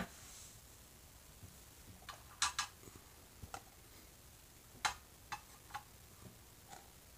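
Light, scattered clicks and taps of small plastic miniature pieces being handled, picked up and set down, about ten in all, with a sharper click right at the start.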